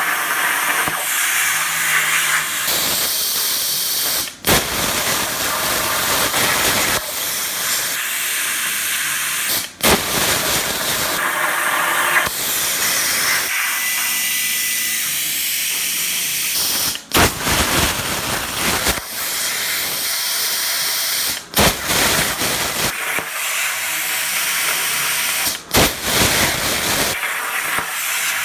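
Razorweld 45 plasma cutter's machine torch cutting 16-gauge sheet metal at about 32 amps: a steady loud hiss that breaks off sharply for a moment five times, every few seconds.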